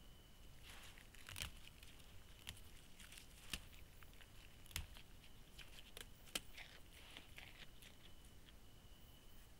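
Near silence of a night field, with a thin steady high whine and faint scattered clicks and crackles.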